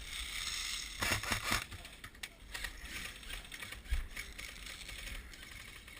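Rustling and knocking of a player and their gear moving close to a helmet-mounted camera, with a quick run of sharp clicks about a second in and single knocks later.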